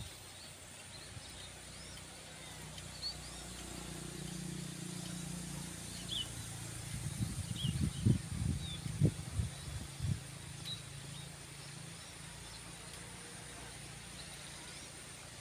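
Small birds chirping now and then over a steady high hiss. A low rumble swells through the middle, with a cluster of heavy thumps, the loudest sounds, a little past the middle.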